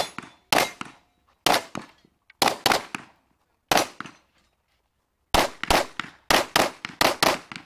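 Pistol shots fired rapidly during a practical shooting stage: about eighteen sharp cracks, mostly in pairs a quarter-second apart, with a pause of about a second and a half near the middle, then a fast run of shots.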